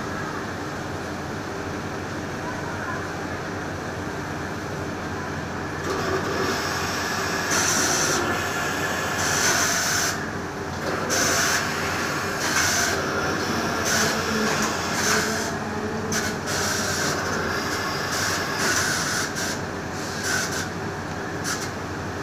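Automatic duck-down filling machine running with a steady blower noise. From about six seconds in, it gives a series of irregular hissing air blasts, roughly a second apart, as down is blown into the jacket.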